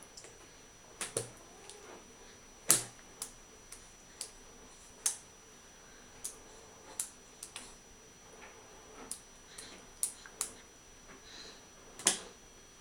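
A baby's hands slapping and patting a plastic high-chair tray slick with spilled ryazhenka: irregular wet slaps, the loudest about three seconds in and just before the end.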